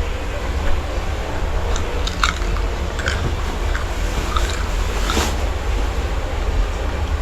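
Someone biting into and chewing a raw garlic clove, a run of crisp crunches from about one and a half to five seconds in, over a steady low rumble.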